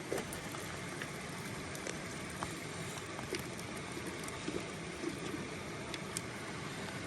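Steady rushing of a river in flood, with faint scattered clicks and small splashes over it.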